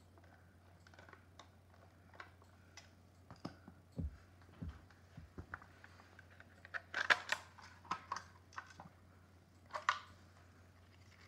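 Plastic clicks, taps and clatters from handling a cordless phone base as its base plate is unscrewed and the casing pried open. The clatters come loudest in a burst about seven seconds in and again near ten seconds.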